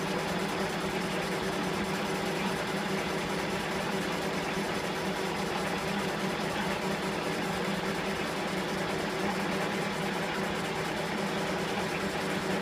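Metal lathe running steadily with a constant hum, turning a metal workpiece.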